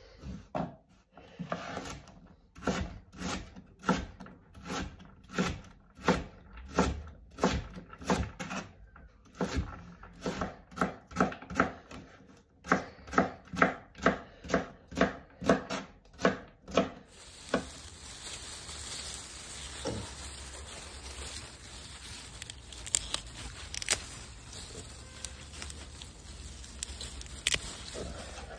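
A chef's knife chopping carrots and a white root vegetable on a wooden cutting board, with regular blade strikes on the board at about two a second. About 17 s in, the chopping stops and gives way to a steady low rumble and hiss with leaves rustling as green plants are handled.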